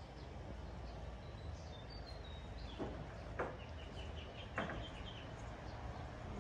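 Three light knocks of small containers being set down on a wooden table, with a run of faint high bird chirps in the background over a low steady hum.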